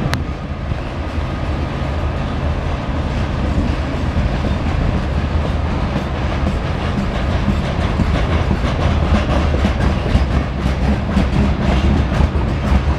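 Loaded coal train's hopper cars rolling past: a steady low rumble with wheels clicking over the rail joints. It grows a little louder, and the clicks come thicker over the second half.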